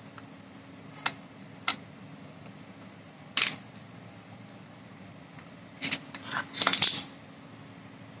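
Small metal starter-motor parts clicking and clinking as they are handled: two sharp clicks, a bright clink about three and a half seconds in, then a quick cluster of clinks near the end.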